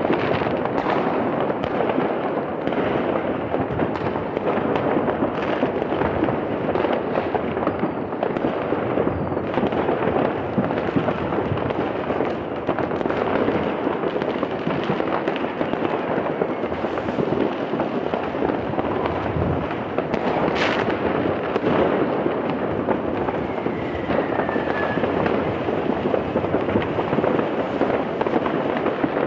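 Dense, unbroken crackling and popping of many fireworks rockets and firecrackers going off at once. There is one louder bang about two-thirds of the way through, and a short falling whistle of a rocket a few seconds later.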